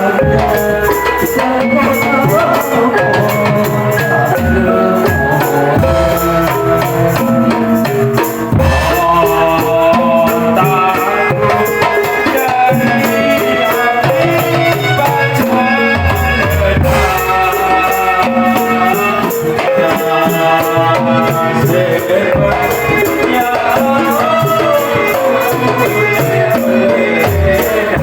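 Steady music: a pitched melody over rhythmic drumming and jingling, shaken percussion like tambourines or rattles.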